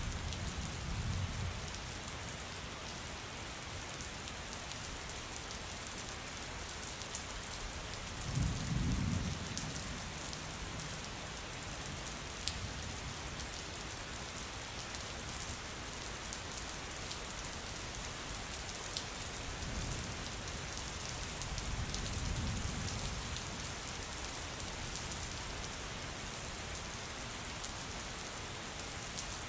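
Steady rain falling, with low rumbles of distant thunder a few times, the strongest about nine seconds in, and occasional sharp drips.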